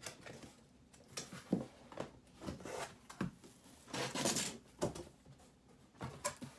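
A box and its packaging being opened and handled: scattered rustles, scrapes and light knocks, with a longer rustling patch about four seconds in.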